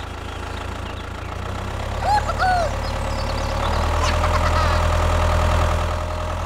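Tractor engine idling with a steady knocking chug, growing louder about halfway through. Two short chirps about two seconds in.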